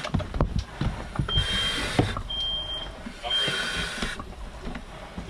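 A smoke alarm sounding its high beep in groups of three, repeating after a pause, the alarm signal for smoke in the house. Between the beeps come rushing breaths about every two seconds and a few light knocks.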